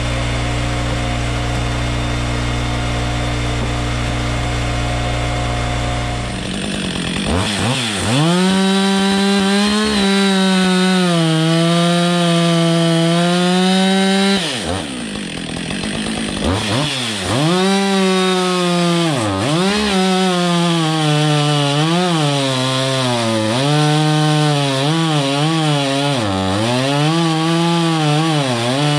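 Husqvarna 555 two-stroke chainsaw idling steadily, then revving up about six seconds in and bucking a log round. Its pitch sags and recovers again and again as the chain bogs under load in the wood. Revs drop briefly about halfway through, then climb again for a second cut.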